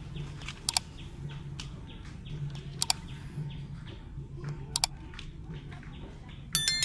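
Subscribe-button animation sound effects: three quick double mouse clicks about two seconds apart, then a bright notification-bell chime with several ringing tones near the end. Underneath, a faint rapid chirping repeats about three times a second.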